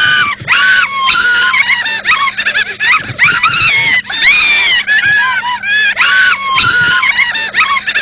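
High-pitched, squealing, wailing voice-like cries in a quick string of bursts, gliding up and down in pitch with short breaks between them. A faint low steady hum lies underneath.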